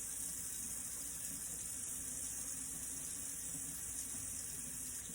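Tap water running steadily into a kitchen sink, rinsing a dishwasher filter part.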